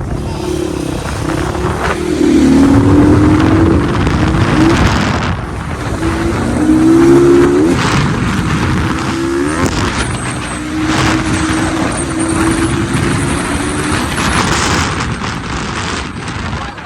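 A motor vehicle's engine at speed, its pitch rising in a few short steps as it accelerates and then holding steady, under heavy wind noise on the microphone.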